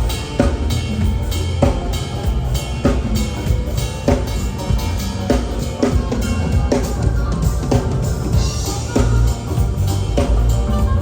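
A live band playing, with a drum kit keeping a steady beat of bass drum and snare hits over a heavy low end.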